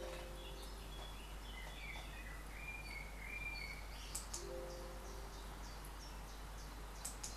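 A small bird chirping: a run of short stepped notes and sharp high ticks, over a steady background hiss and low hum. A lower, steadier tone sounds near the start and again about halfway through.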